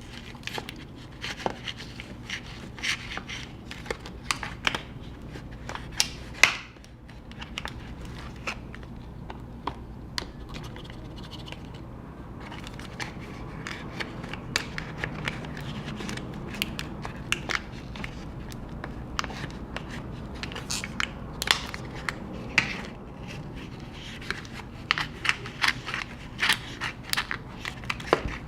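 A plastic pry tool scraping under a glued MacBook Pro battery cell, with irregular sharp cracks and crackles as the cell is worked loose from its adhesive.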